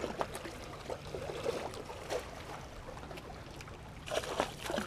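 Water trickling and lapping, with scattered small clicks.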